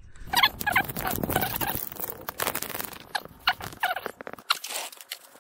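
Handling noise from a camera being set back onto its mount: irregular clicks, knocks and rustling, with a few brief squeaks in the first second.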